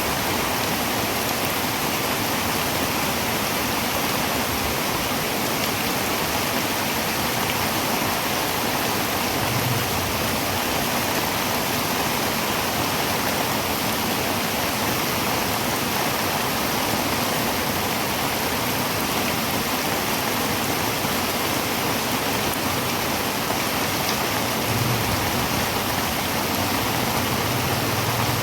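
Heavy rain falling steadily on a tin roof, an even, unbroken hiss of many drops.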